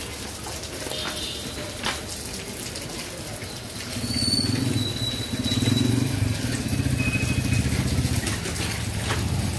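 A motor vehicle engine running close by, a low rumble that grows louder about four seconds in and keeps going. A couple of faint knocks come in the first two seconds.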